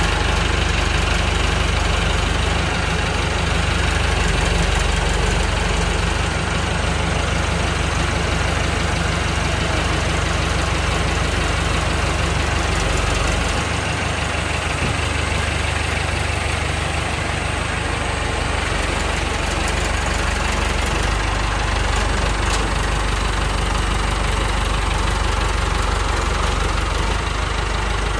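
Massey Ferguson 188 tractor's four-cylinder diesel engine running steadily at low revs, its note shifting slightly about halfway through and again later.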